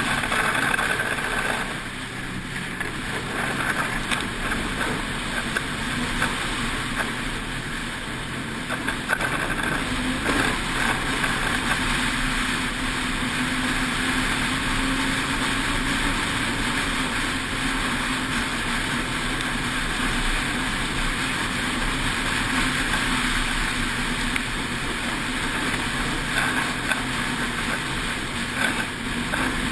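Snowmobile engine running steadily at trail speed, with the rush of the sled's track and the air over the snow.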